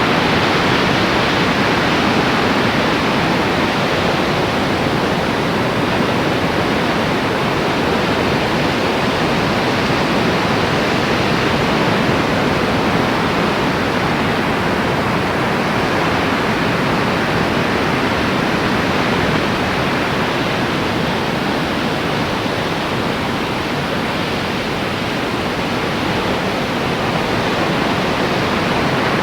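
Steady rushing wash of ocean surf, even and unbroken.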